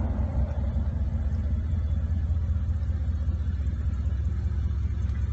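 Audi S5's 4.2 V8 through a Capristo aftermarket exhaust, settling right at the start into a steady, deep idle rumble, echoing off the tunnel walls.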